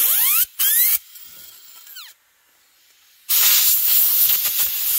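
Compressed-air blow gun blasting air into a chainsaw bar to clear out dirt. Two short bursts of hiss in the first second, each with a rising whistle, then a long continuous blast from about three seconds in.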